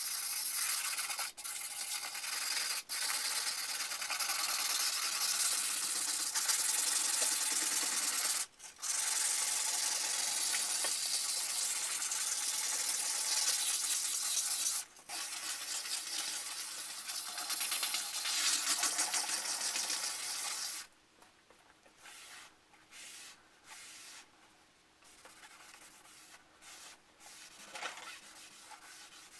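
Oiled abrasive scrubbed back and forth over the rusted steel blade of an antique Atkins saw, scouring off rust: a steady scratchy scouring with a few short breaks that stops about 21 seconds in. After that only faint, intermittent rubbing follows as a rag wipes the blade.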